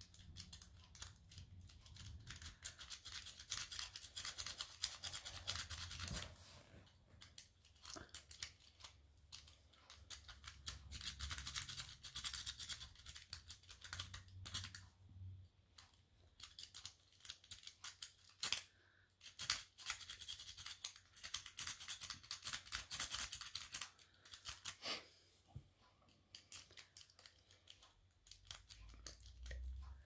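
A half-diamond lock pick raking and probing the pin tumblers of a Burg Wachter Sapphire 121 CS 50 laminated steel padlock while the lock is being picked. Fast metallic scratching and clicking comes in three main runs of a few seconds each, with single clicks in the pauses between.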